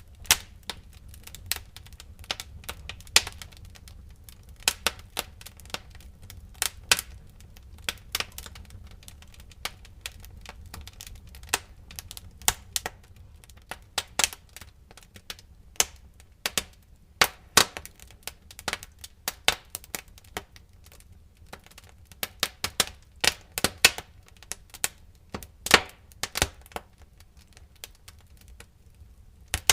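Wood fire crackling in a fireplace: irregular sharp pops and snaps, several a second in clusters, over a steady low rumble of the burning logs.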